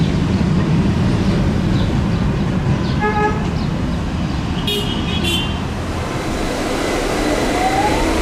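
Steady rumble of a tram running through city street traffic, with car horns honking: one short horn about three seconds in, then two short higher-pitched toots about two seconds later. A rising whine starts near the end.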